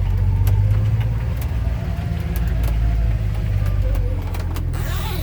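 A four-wheel-drive vehicle's engine drones steadily at low speed, heard from inside the cab, with scattered light ticks over it. A short swishing noise comes in near the end.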